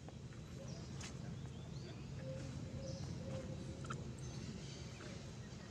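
Faint outdoor ambience: a low steady background hum with a few soft ticks and faint, short high chirps.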